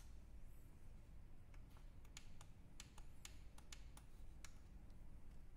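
Faint clicks of the Alfajr CW-15 prayer clock's buttons being pressed, about a dozen quick clicks, some close together, in the middle few seconds. The presses step through the clock's country setting.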